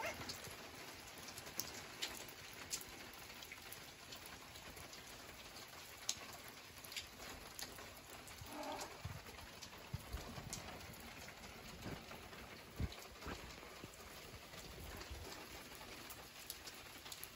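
Steady rain falling on a flooded paved terrace and tile roof, with drops ticking and a few soft low thumps. A brief animal call sounds about nine seconds in.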